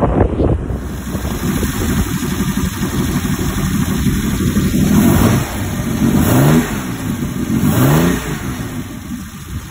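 Volvo Penta AQ170 inboard petrol engine running in a boat's engine bay, revved twice, about six and eight seconds in, and settling back each time.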